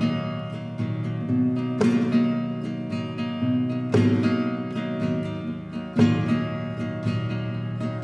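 Flamenco guitar playing a rhumba: a rhythmic plucked and strummed pattern with sharp strummed chord accents about every two seconds.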